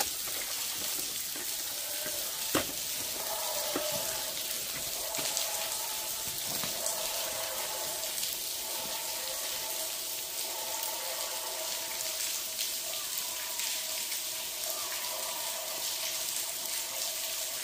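Steady hiss of water falling down a wet tunnel air shaft. A click comes a couple of seconds in, followed by a droning electronic sound of several tones from a toy TARDIS playing its sound effect, which fades out near the end.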